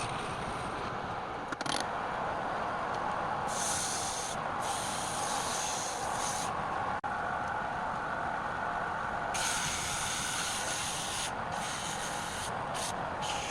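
A wood lathe running steadily while a turning tool cuts into the spinning workpiece, the cut hissing in spells as the tool is pressed in and eased off.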